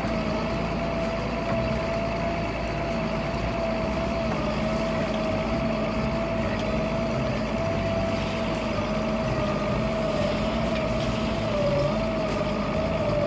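Heavy machine running steadily, its engine droning under a continuous high whine that wavers slightly in pitch.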